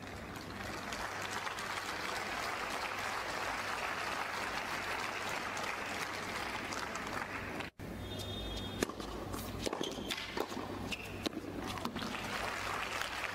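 Tennis stadium crowd applauding, heard through a television's speaker, the clapping building over several seconds and then cut off abruptly. A quieter stretch follows, with a low hum and a few sharp knocks, most likely racket strikes on the ball as a point is played.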